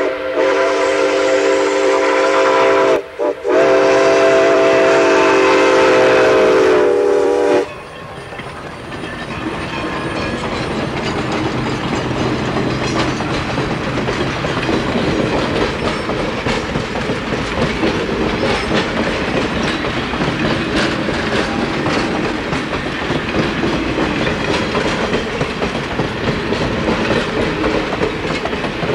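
Steam whistle of Baldwin 2-8-2 locomotive No. 19 blowing a loud steady note. It breaks off briefly about three seconds in, then sounds a long blast that stops suddenly at about seven and a half seconds. Then the passenger cars roll past with a rising rumble and clickety-clack of steel wheels over rail joints.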